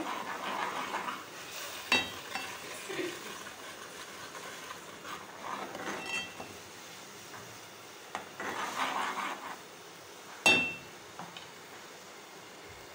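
Spice masala of garlic-ginger paste bubbling and sizzling in oil in a metal pot while a metal spoon stirs and scrapes through it, clinking against the pot twice, about two seconds in and, louder, near ten seconds. It is the bhuna stage, frying the paste until its raw garlic-ginger smell is gone.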